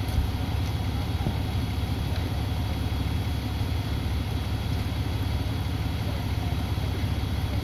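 A large truck's engine idling steadily: an even, low rumble.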